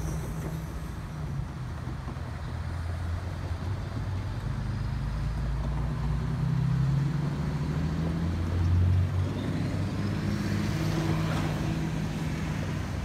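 Cars and pickup trucks driving past on the road across the tracks, engines running with a low hum that swells as each vehicle passes, loudest about seven and nine seconds in.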